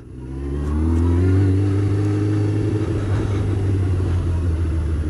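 1998 Honda CBR600F's inline-four engine pulling away, its pitch rising over about the first second and a half, then running steady.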